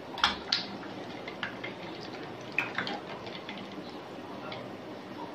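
Light clinks and taps of glass mugs and ice cubes, half a dozen scattered ticks over a faint steady hiss, with a quick cluster of taps near the end.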